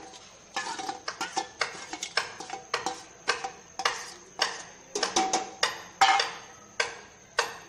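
Metal spoon knocking and scraping against a steel bowl and the rim of an aluminium pressure cooker as marinated mutton is scraped out into the pot: a run of sharp clanks with short ringing, roughly two a second.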